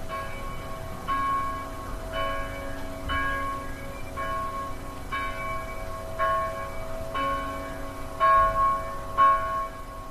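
A bell tolling, struck about once a second with each stroke ringing on into the next. The last two strokes are the loudest.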